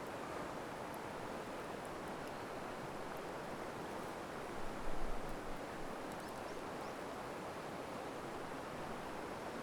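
Campfire crackling with faint scattered pops over a steady rush of flowing water; a brief low thump about five seconds in.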